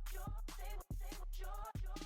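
Background hip hop music: a deep bass and drum beat under a short, repeating chopped vocal phrase.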